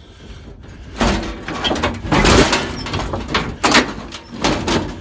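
Sheet-metal panel being handled and knocked into place: a run of clattering metal knocks and scrapes starting about a second in.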